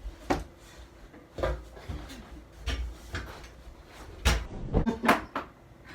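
Scattered knocks and bumps of objects being handled in a small room, about eight of them at irregular intervals. The loudest comes a little past four seconds in.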